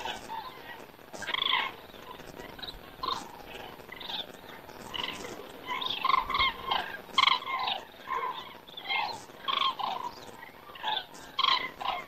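A flock of common cranes calling in flight, many short overlapping calls from several birds, thickest about halfway through.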